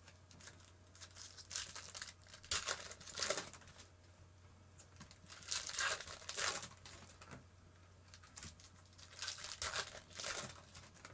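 Baseball card pack wrappers crinkling and tearing as packs are opened, in three bursts of a second or two each.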